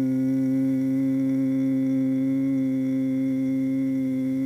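A man's closed-mouth hum held steadily on one low note, with his ears plugged: the humming bee breath (Bhramari pranayama).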